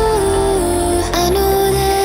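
Background music: a melody held in long notes that step up and down in pitch over a steady bass.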